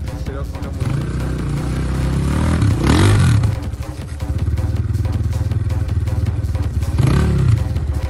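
Enduro dirt bike engine working under load, its revs rising and falling sharply about three seconds in and again near the end.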